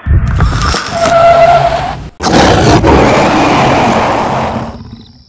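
Monster roar sound effect: a loud, rough growling roar in two bursts, with a brief break about two seconds in, the second burst fading out near the end. It opens on a deep heartbeat-like thump.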